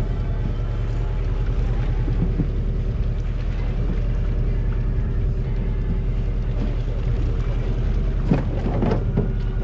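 Fishing boat's engine running steadily, a low drone with a constant hum, with a short burst of other noise about eight seconds in.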